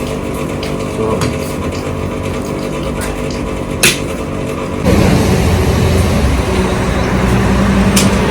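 Vehicle engine running with a steady hum and a single sharp click about four seconds in; about five seconds in the engine noise becomes louder and rougher.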